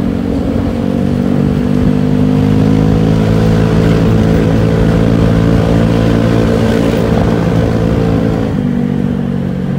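Honda Vario 125 scooter's single-cylinder engine running through a CLD C1 aftermarket exhaust while riding at an easy cruising speed, with wind and road noise. The engine note climbs a little at first, holds steady, then drops as the throttle eases near the end.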